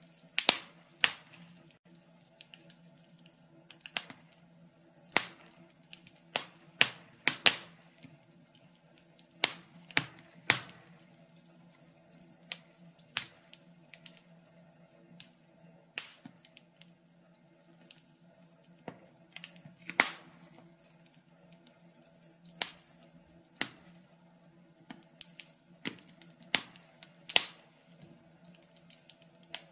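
Wood logs burning in a fireplace, crackling with sharp, irregular pops and snaps, some much louder than others, over a faint steady hum.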